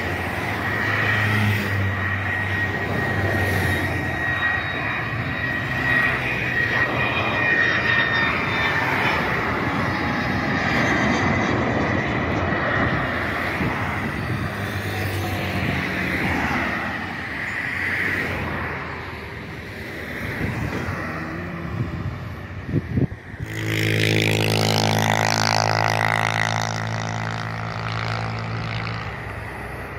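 Fokker F28 jet engines with a steady high whine over rushing noise during the landing roll. Then, suddenly, the steady drone of a Cessna 172's propeller engine as it climbs low overhead on a touch-and-go.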